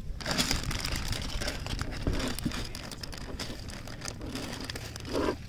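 Crinkly rustling and handling noise, with scattered small ticks and a brief louder rustle near the end.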